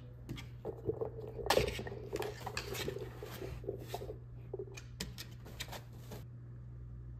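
Dogs playing together: a run of scuffling, pawing and sharp clicking sounds that starts just after the beginning and stops about six seconds in.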